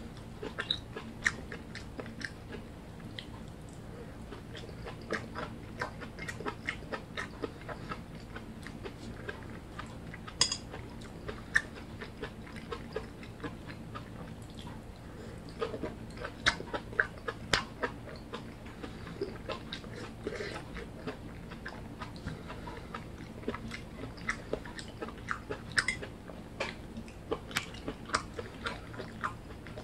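Close-miked chewing of egg-battered, pan-fried tomato slices (tomato jeon): a steady stream of small, irregular wet clicks and crackles from the mouth, with now and then a sharper click of metal chopsticks against the plate.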